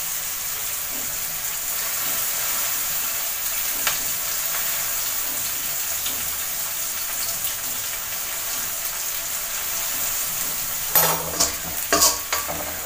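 Sliced onions, curry leaves and green chillies sizzling in hot oil in a metal cheenachatti (Kerala wok), a steady frying hiss. About eleven seconds in they start being stirred, with clinks and scrapes against the pan.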